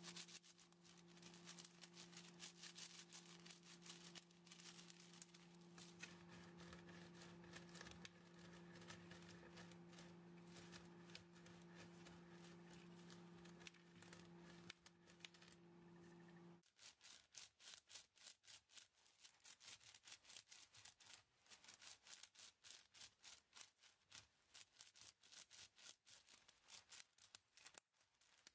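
Faint rapid scrubbing of a cloth pad rubbed back and forth over paper, with many short strokes in quick succession. A low steady hum underneath stops a little past halfway, and the strokes then come through as separate swishes.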